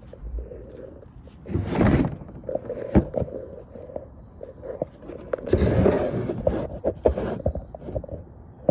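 Handling noise from a phone being propped up and moved: two longer bursts of scraping and rustling, about two seconds in and again around six seconds, with several sharp knocks in between.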